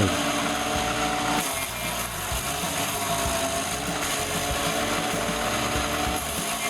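Wood chipper running: a steady engine tone over rough, even noise.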